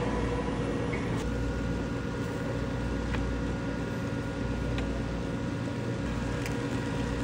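Steady hum of a ramen cooking machine running under a paper bowl of noodles, with a few faint ticks scattered through.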